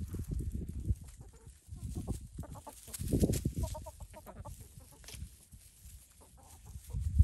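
Free-range hens clucking as they feed on dried black soldier fly larvae scattered on grass, with a quick run of repeated clucks about halfway through.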